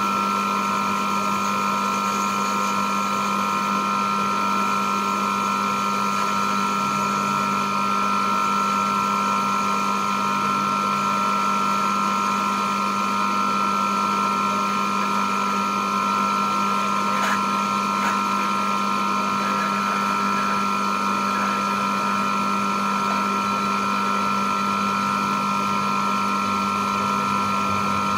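Small benchtop metal lathe running at a steady speed with a constant whine from its motor and drive, while a brass rod is turned, with a few faint clicks about two-thirds of the way through.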